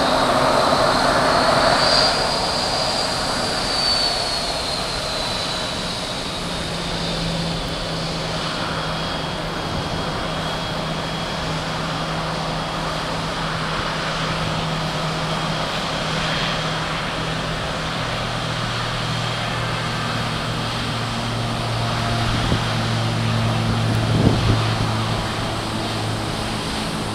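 Pilatus PC-12/47 single-engine turboprop on its takeoff roll and lift-off, heard from a distance: a steady propeller hum over a hiss of airport noise. The hum deepens into a stronger low drone about two-thirds through. A high whine rises and then falls in the first few seconds, and a couple of brief knocks come near the end.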